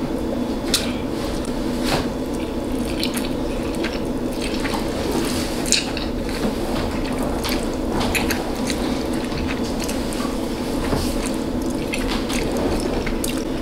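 Close-miked wet chewing of spicy noodles and steak, with scattered short clicks over a steady low room hum.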